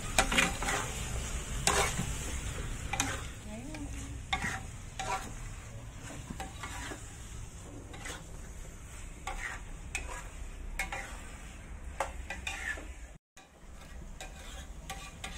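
Metal spatula scraping and clinking against a metal wok while stir-frying, over a steady frying sizzle. The scrapes come often and louder in the first half and grow quieter toward the end, and the sound cuts out for a moment near the end.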